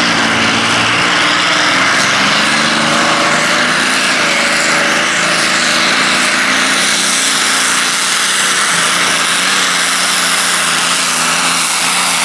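Modified pulling tractor at full throttle, its engine running hard and loud under load while dragging the weight sled. The pitch climbs over the first few seconds as the tractor gets moving, then holds at a steady high-revving howl.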